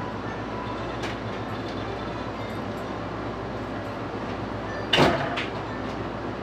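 Steady background hum and hiss around a convenience-store multifunction copier as it downloads a document, with a few faint clicks and one brief loud clunk about five seconds in.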